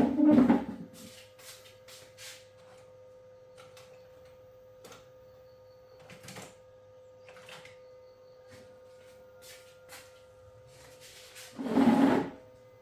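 Handling noises on a workbench during electronics repair: a loud knock right at the start and another about twelve seconds in, with scattered light clicks between, over a steady faint hum.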